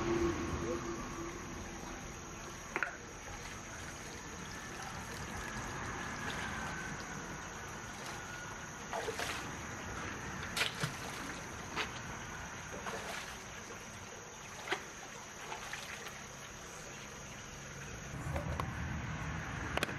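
Shallow stream water trickling steadily over rocks, with about ten scattered short clicks and small splashes, most of them in the middle stretch, as someone wades and handles things in the water.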